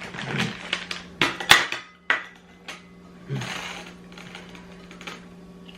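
A plate and dishes knocking and clinking as they are handled on a table, a quick run of sharp knocks in the first two seconds, then a short rustle.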